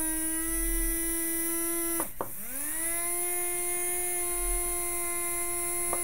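Small brushed DC motor driven at 60% speed by an L298N motor driver, running with a steady whine. About two seconds in, it slows sharply, reverses direction from counterclockwise to clockwise, and spins back up to the same steady whine.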